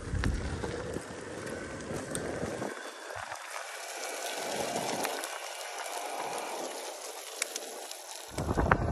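Wind buffeting an outdoor microphone over a steady rushing noise. The low rumble of the gusts drops away about two and a half seconds in and returns near the end.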